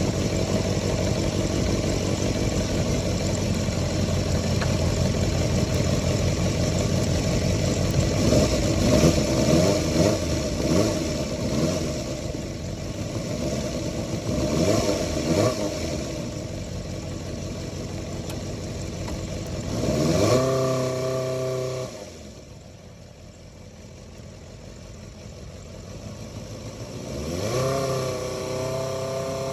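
Suzuki Bandit 250 V inline-four engine running, with the revs going up and down unevenly for a while. About two-thirds through, the pitch rises sharply as it accelerates, then drops away to a much lower level. Near the end it rises again.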